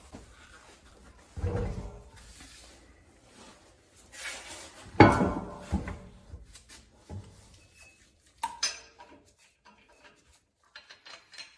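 A car wheel being fitted back onto the hub: several dull thumps and knocks as the tyre and alloy wheel are lifted and seated on the studs, the loudest about five seconds in, then light metallic clicks near the end as lug nuts are threaded on by hand.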